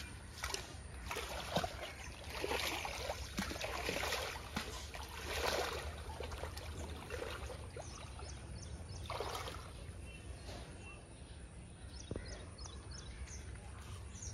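Water buffalo moving in a shallow stream, water splashing and sloshing in several irregular bursts. Small birds chirp faintly near the end.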